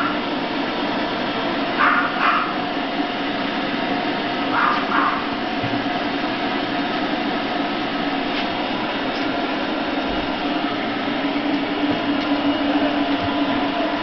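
Large stand-mounted pet grooming dryer running with a steady whir and hum. Two brief pairs of higher sounds stand out about two and five seconds in.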